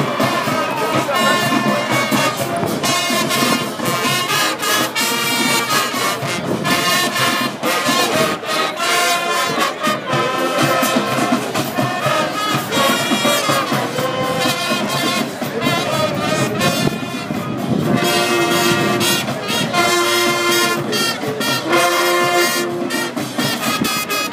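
High school marching band playing a brass-led number, with trumpets and trombones carrying the tune.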